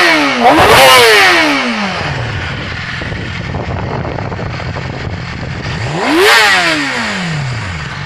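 2008 Yamaha YZF-R6's inline-four engine on its stock exhaust, blipped hard and falling back to idle. A quick pair of revs comes right at the start, it idles for a few seconds, then it is revved up and down once more about six seconds in.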